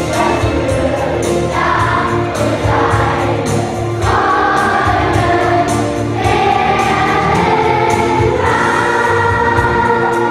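Children's choir singing an upbeat song together over an accompaniment with a steady bass and a regular beat.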